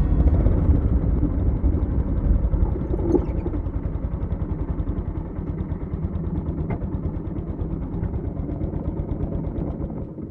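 Honda GB350's single-cylinder engine running with an even, low pulsing beat. It is loudest for the first couple of seconds, then settles to a steady lower level that sounds like idling or slow rolling.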